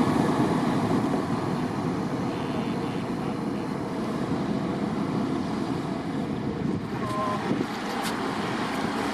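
Tram running along the track, a steady rolling noise that eases off a little over the first few seconds.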